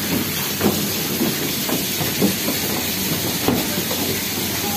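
Artificial rock waterfall splashing steadily into a shallow pool, a continuous hiss of falling water with faint voices in the background.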